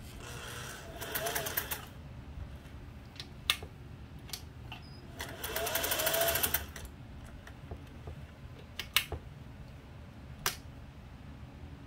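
Singer 401A sewing machine stitching in two short bursts of a second and a half or so, the motor whine rising as it speeds up over the quick, even clatter of the needle. This is a test seam to check the stitch tension. A few separate sharp clicks fall between and after the bursts.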